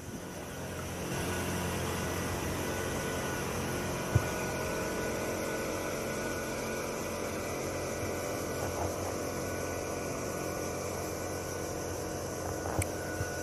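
Motorboat engine running steadily on the river, coming up about a second in and holding at an even pitch, with a single sharp knock about four seconds in.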